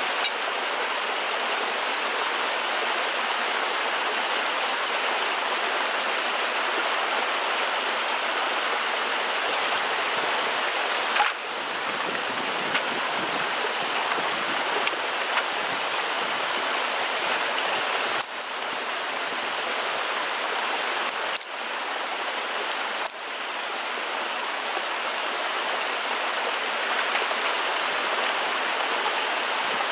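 Shallow rocky stream flowing steadily: an even rush of running water.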